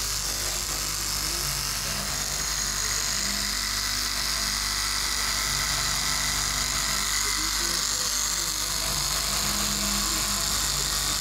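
KM electric straight-knife cloth cutting machine running steadily, a constant motor buzz with a high hiss, as its upright reciprocating blade is pushed through a thick stack of layered fabric.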